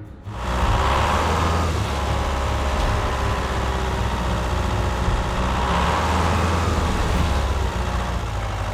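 Engine running steadily, a low, even sound with no clear change in speed.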